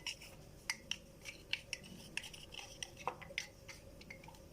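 Light, scattered clinks and taps of glass jars and kitchen things being moved about while rummaging for a jar.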